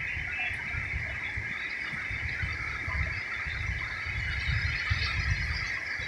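Ocean surf breaking and washing up a sandy beach, heard as an uneven low rumble that swells and fades, under a steady high-pitched hiss that makes the recording sound odd.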